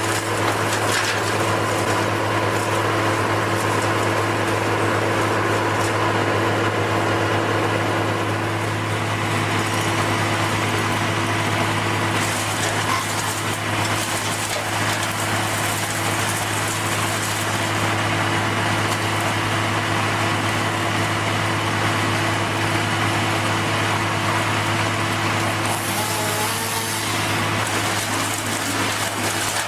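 A heavy machine's engine running steadily at constant speed: an even low hum with a hiss over it.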